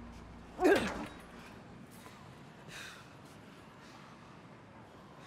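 A person's short, strained grunt of effort in a struggle, falling in pitch, about half a second in; then a faint breath near three seconds.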